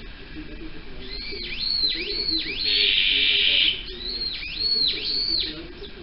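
Japanese bush warbler (uguisu) calling: a run of clear whistled notes, each rising and then falling, about two a second, broken near the middle by a louder rasping note, then three more whistled notes.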